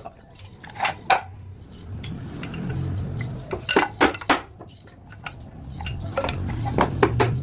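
Sharp knocks and clinks of hard objects being handled, in small clusters, over a low hum that swells twice.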